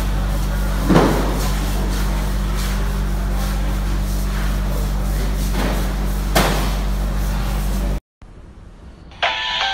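Steady hum and background din of a large indoor fish market hall, with a couple of sharp knocks. The sound cuts off about eight seconds in, and music starts about a second later.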